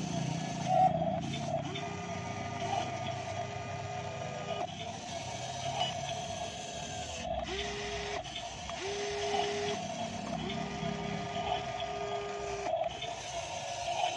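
Motors of a remote-controlled Kobelco SK200 model excavator whining as it works its boom and arm. A steady hum runs under a higher whine that starts and stops several times, each run lasting about one to three seconds.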